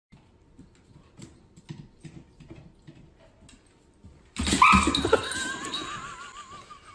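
Faint scuffling and clicks, then about four seconds in a dog's loud whining cry starts, ending in a long call with a wavering pitch.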